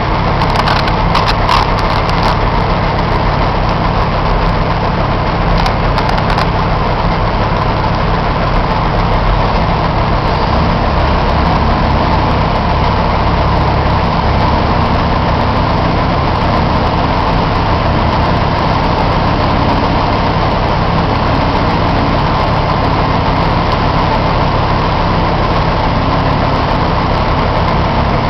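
Heavy diesel engine idling steadily, heard from inside a truck cab, with a few faint clicks in the first two seconds and again about six seconds in.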